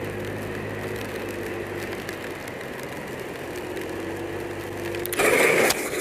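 Motorcycle engine running steadily over a constant hiss, its pitch creeping up slightly. About five seconds in, a sudden loud noisy burst breaks in as the bike goes down on the wet road.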